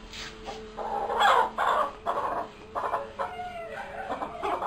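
Chickens calling: a few rough squawks between one and two seconds in, then a run of short pitched clucking calls near the end.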